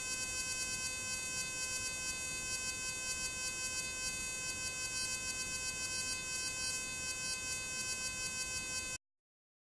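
Jacob's ladder arc fed by a 12-volt car ignition coil, buzzing at a steady pitch with a rapid, uneven flutter several times a second. The sound cuts off suddenly near the end.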